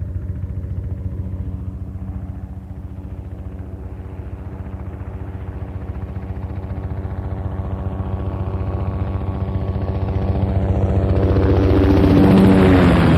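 Helicopter flying with a rapid, even chop of rotor blades over a steady engine tone. It grows steadily louder and is loudest near the end as it comes close.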